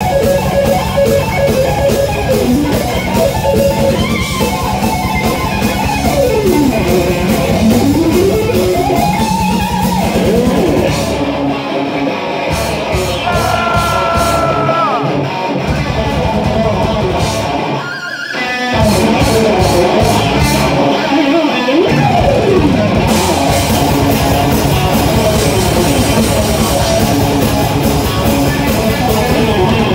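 A heavy metal band plays live, led by a distorted Stratocaster electric guitar playing fast runs that sweep up and down in pitch over bass and drums. Between about eleven and twenty-two seconds in, the bass and drums drop out for several short stops while the guitar carries on, then the full band plays on.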